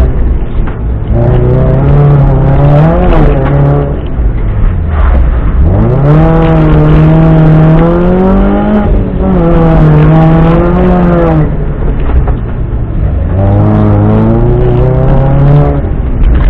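Alfa Romeo's engine heard from inside the stripped-out cabin, driven hard. It is loud throughout, its pitch climbing under acceleration and dropping sharply at each gear change, four times or so, then climbing again.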